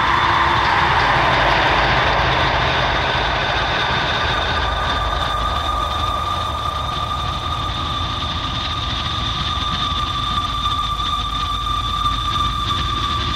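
Dark ambient drone: a rumbling noise bed under steady, high, held tones, with a hissing swell sinking in pitch over the first few seconds and a second held tone coming in partway through.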